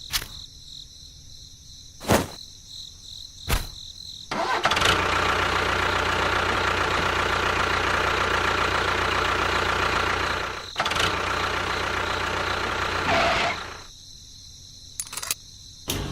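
Small motor of a miniature model construction vehicle starting and running steadily for about nine seconds, with a brief dip about eleven seconds in, then stopping. A few sharp clicks come before it starts and again near the end.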